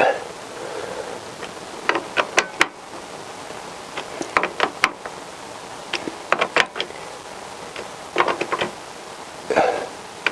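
Socket ratchet clicking in short bursts, about every two seconds, with sharp metal clinks as the socket goes onto the clutch spring bolts.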